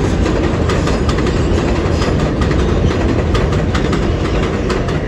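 NYC subway R142A train running past on elevated track: a steady loud rumble of wheels on rail, with the wheels clacking repeatedly over rail joints.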